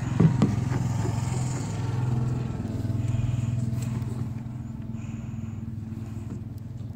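A motor, like an engine, running steadily with a low hum. A couple of sharp knocks come about half a second in.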